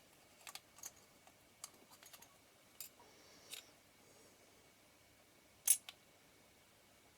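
Scattered light clicks and taps of small metal lens parts of an Ai-Nikkor 24mm f/2.8 being handled and fitted during reassembly, with one sharper click about three-quarters of the way through.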